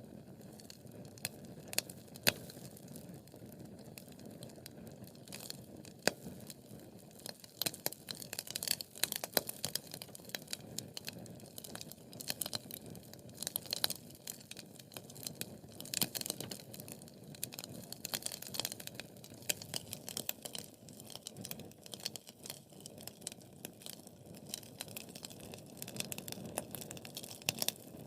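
Wood fire crackling: a steady low rush of flames with many sharp, irregular pops and snaps from the burning logs, coming in denser clusters at times.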